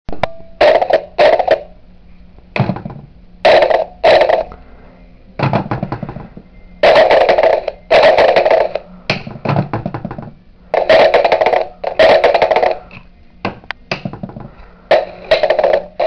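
Pet parrot screeching: loud, harsh calls repeated every few seconds, often in quick pairs.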